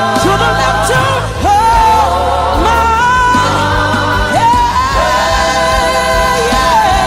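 Live gospel singing by a church worship group with a band: voices hold long, wavering notes over a steady bass line.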